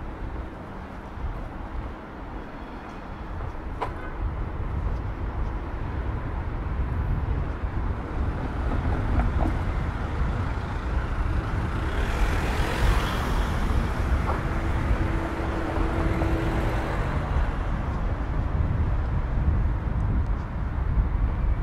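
Street traffic with a steady low rumble. A car passes close by about halfway through, its tyre noise swelling and fading, followed briefly by a steady engine hum.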